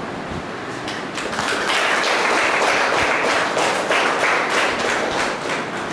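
A small group clapping, starting about a second in and dying away near the end, over a steady background hiss.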